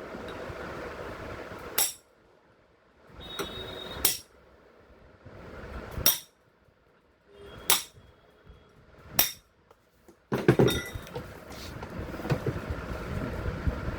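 Hammer blows on steel parts of a Bosch GDC 120 marble cutter during bearing replacement: five single sharp strikes about a second and a half to two seconds apart, then from about ten seconds in a dense run of metallic knocking and rattling.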